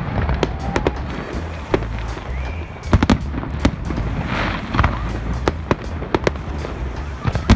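Fireworks exploding overhead: a string of sharp bangs and crackles at uneven intervals, the loudest about three seconds in.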